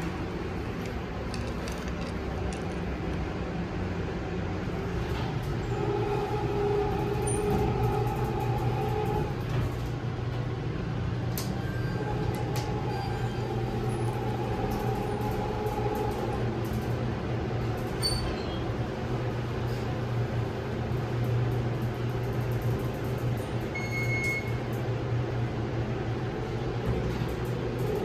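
Elevator machinery and cab sounds: a steady low hum throughout, with two spells of a steady mechanical whine, about six seconds in and again about twelve seconds in, and scattered light clicks.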